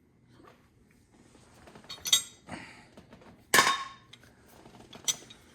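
Metal tools being handled: a few sharp clinks and clanks, the loudest about three and a half seconds in with a short metallic ring.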